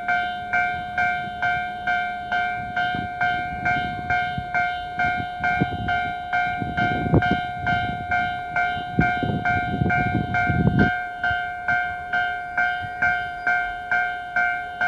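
Japanese railway level crossing warning bell ringing steadily at about two strikes a second, on a lo-fi cassette recording. A Keio Inokashira Line train runs over the crossing, its rumble building from about three seconds in, with a few wheel knocks, and stopping abruptly near eleven seconds while the bell keeps ringing.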